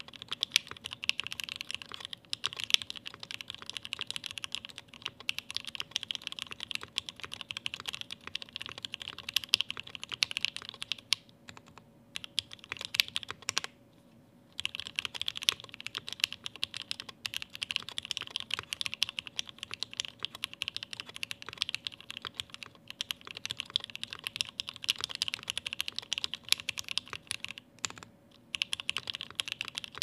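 Continuous typing on a plateless, foamless Tofu60 aluminium-case mechanical keyboard with H1 switches spring-swapped to 72 g Sprit springs, lubed with Krytox 205g0 and filmed, under ePBT keycaps. It is a dense run of keystroke clacks with brief pauses about 11, 14 and 28 seconds in, over a faint steady hum.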